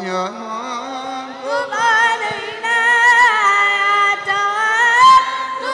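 Qasidah singing: a high voice sings an ornamented melodic line without accompaniment, wavering with vibrato and sliding between notes.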